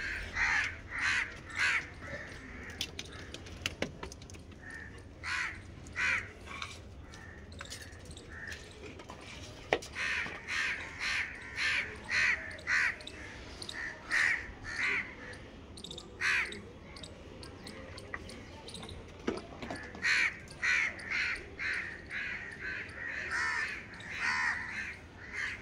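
Many crows cawing, short calls coming in repeated runs with a brief lull past the middle. One sharp click about ten seconds in.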